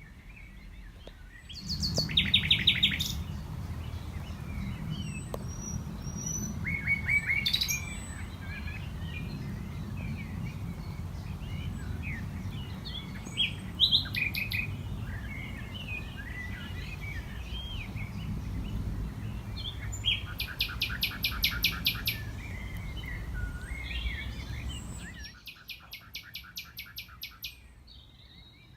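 Common nightingale singing, with loud phrases of rapid repeated notes about two seconds in, about twenty seconds in and again near the end, and shorter varied notes between them. A blackbird sings in the background. A low rumble runs underneath and stops a few seconds before the end.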